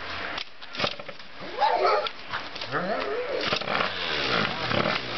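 A dog barking and whining in bending, pitched calls from about a second and a half in. Before that come a few sharp clunks from kicks at a small bike's kick-starter; the engine does not start.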